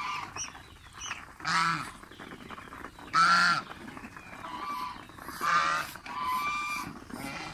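White domestic goose honking, about four loud calls a second or two apart, the loudest about three seconds in: the goose is unhappy with the ducks and chickens crowding around it.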